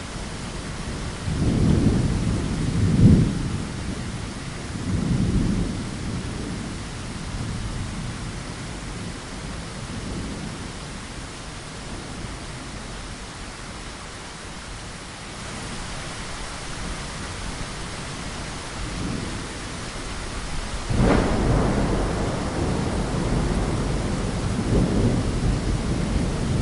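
Steady rain falling, with thunder: low rolling rumbles in the first few seconds, then a sharp thunderclap about three-quarters of the way through that rumbles on to the end.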